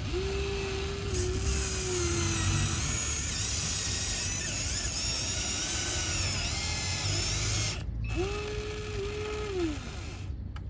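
Electric motors of a Huina RC excavator whining as it works, with a steady tone in the first couple of seconds and again near the end, where it drops away, over higher shifting whines.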